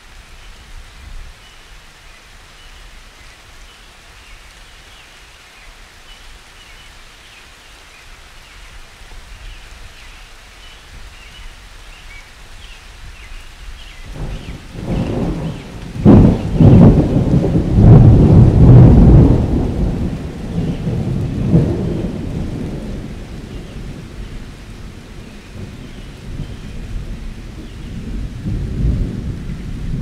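A roll of thunder: over a steady hiss, a loud low rumble builds about halfway through, peaks for several seconds and slowly dies away.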